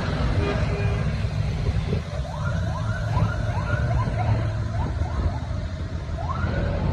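Large farm tractor's diesel engine rumbling steadily as it rolls slowly past close by. A horn toot trails off just after the start, and a run of short rising-and-falling high calls comes a couple of seconds in, with one more near the end.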